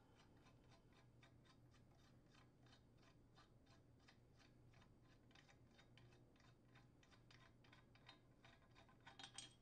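Near silence, with faint, evenly spaced metallic ticks, about three or four a second, as the impeller removal tool is spun by hand off its thread in the impeller's center bolt hole.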